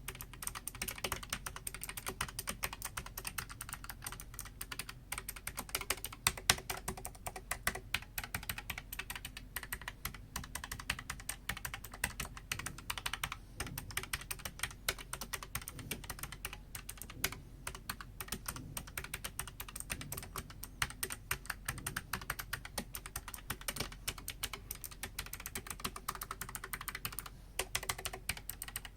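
Continuous typing on a Keychron K5 Ultra Slim wireless mechanical keyboard with blue clicky switches: a dense, unbroken stream of key clicks.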